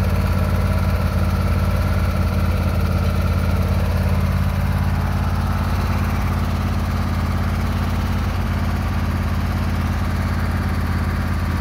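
Craftsman lawn tractor engine idling steadily.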